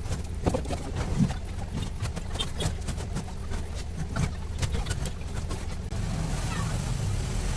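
Light clicks and taps of small tools and parts being handled on an opened iPhone during reassembly, over a steady low rumble.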